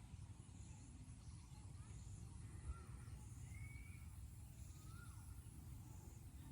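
Quiet outdoor ambience: a steady low rumble, likely wind, with faint, short bird calls every second or two.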